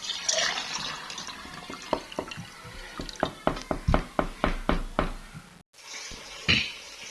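Kitchen sounds: a short splash of running water, then a quick run of knocks, about four a second, and another short splash near the end.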